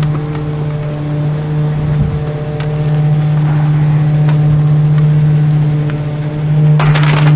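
Rear-loader garbage truck running, a steady low hum with no words over it. Near the end a brief loud burst of noisy scraping and rattling breaks in over the hum.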